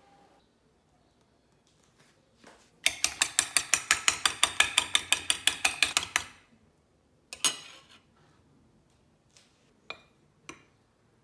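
Egg whites being beaten with a metal spoon in a bowl: a fast, even run of clicks, about seven or eight a second for some three seconds, as the spoon strikes the bowl. Then a short clatter and a few light taps of a spoon on a plate as flour is spooned out.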